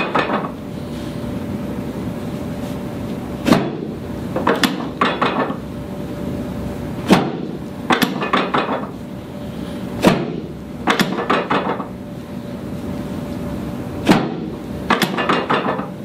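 Chiropractic drop table banging down under the chiropractor's thrusts on the ribs: four sharp clacks, about three to four seconds apart, with quick runs of lighter clicks in between.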